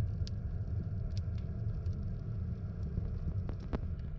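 Steady low rumble of a ship's machinery heard underwater, carried through the water from a vessel loading at the pier, with scattered sharp clicks over it.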